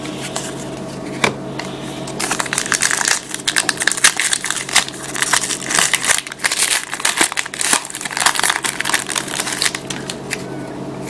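A trading card pack wrapper being torn open and crinkled by hand, a dense run of crackling lasting several seconds.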